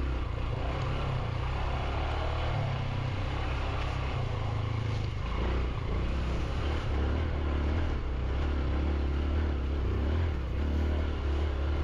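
Motorcycle engine running steadily while riding, its revs shifting up and down several times.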